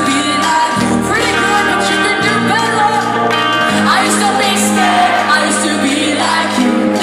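Live pop-punk band playing, with a woman singing lead over electric guitars, bass and drums. The bass holds each low note for about a second and a half before changing.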